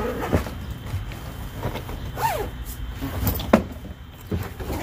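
Blue plastic storage tote being handled and shifted, giving a few hollow knocks and clicks, the sharpest about three and a half seconds in, over a low steady rumble.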